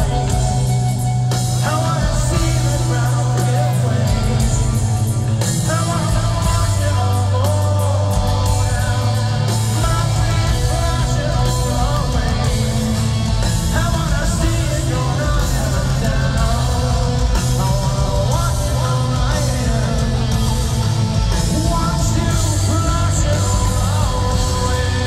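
Progressive metal band playing live in an arena: heavy bass, distorted guitar and drums, with a singer's voice over them.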